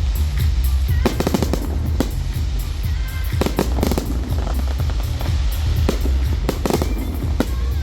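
Fireworks going off in clusters of rapid bangs and crackles over loud music.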